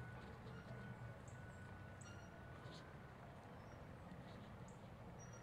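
Near silence: quiet outdoor ambience with a steady low hum and a few faint, short, high chirps of small birds scattered through it.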